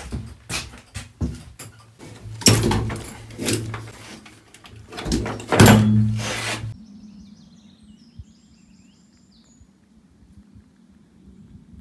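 Clanks, knocks and thuds of ratchet tie-down straps and their metal hooks being released inside an enclosed metal trailer, loudest about two and a half and five and a half seconds in. After about seven seconds this stops and birds chirp faintly.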